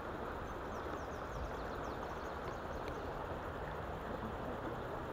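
River water flowing steadily over a shallow, rippling stretch. A faint run of short, high, falling bird chirps sounds over it in the first three seconds.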